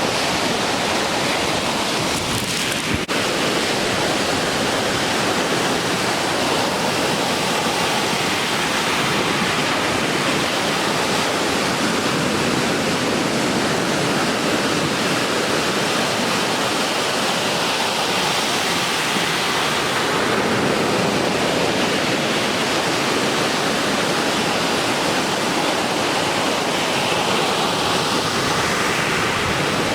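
Ocean surf breaking, a steady, even roar of waves, with a brief click about three seconds in.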